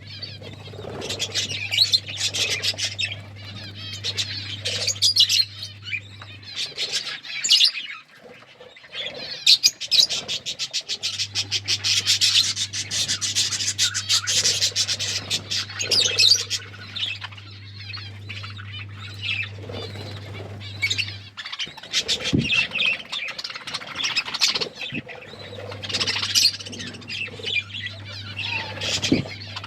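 A group of budgerigars chattering and warbling nonstop, with fast runs of clicks and chirps. A low steady hum comes and goes underneath.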